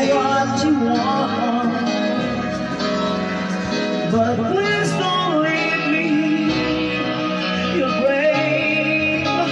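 Karaoke singing into a handheld microphone over a backing track, the voice holding long notes that bend in pitch.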